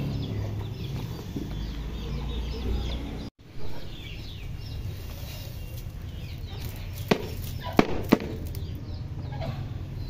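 Chickens clucking with birds chirping throughout, over the rustle of a plastic cage tray being handled. About seven seconds in come three sharp knocks as the tray is tapped out to empty seed husks and droppings.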